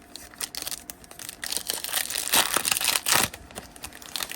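Foil wrapper of a Donruss Optic trading-card pack crinkling and tearing under the hands, in a dense crackle that is loudest in the middle and dies down near the end.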